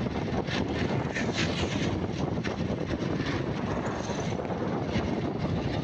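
Steady vehicle engine and road noise from travelling along a road, a dense rumble with no pauses.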